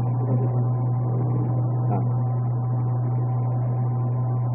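A steady low electrical hum at an even level, with faint background murmur above it.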